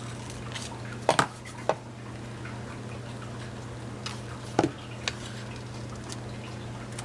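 Handling noise from a plastic bottle of tacky glue and a strip of paper: a few short, sharp clicks and taps, two close together about a second in and two more around the middle, over a steady low hum.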